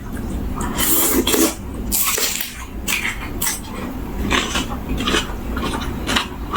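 Close-up eating sounds: irregular crisp crunching and chewing of fresh raw vegetables and seafood salad, with light clatter of a dish or utensils.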